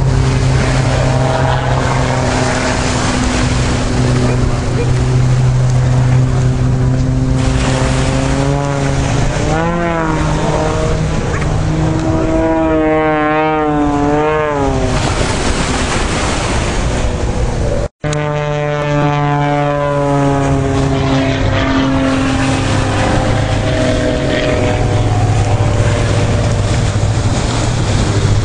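Aerobatic biplane's piston engine and propeller running loud and steady. In the middle its pitch wavers rapidly up and down as the plane manoeuvres, then it settles back to a steady drone. The sound cuts out for an instant about two-thirds of the way through.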